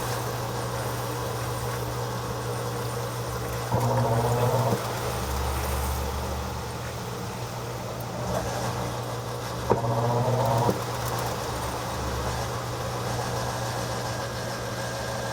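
Haier HLP23E portable washing machine spinning: a steady motor hum, broken twice by a short rising whine about a second long, some six seconds apart, as the motor revs in pulses to level the load.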